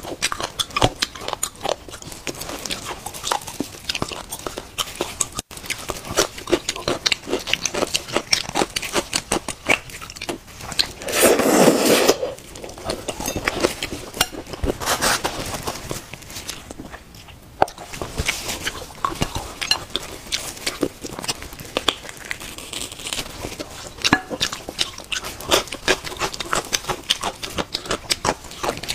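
Close-miked mukbang eating of marrow bones: chewing and biting with many small wet clicks and smacks, plastic gloves crinkling, and a thin metal pick working marrow out of a bone. About eleven seconds in there is a louder noisy sound lasting about a second.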